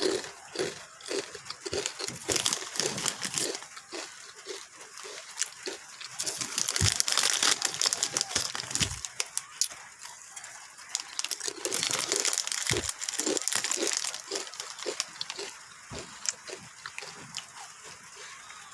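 Close-up crunching and chewing of a crunchy snack, a rapid run of crisp cracks with two louder bouts of crunching.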